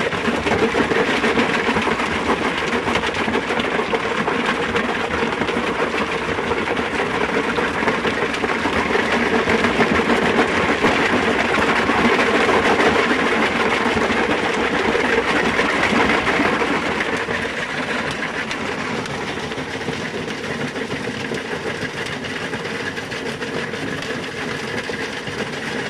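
Metso GP100 cone crusher with a coarse chamber running under load: a dense, continuous rattle and grinding of stone being crushed over a steady machine hum. The noise drops a little about two-thirds of the way through.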